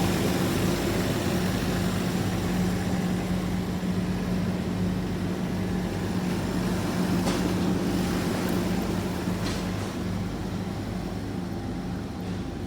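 A large engine idling steadily, its low hum easing off slightly near the end, with two brief clicks in the middle.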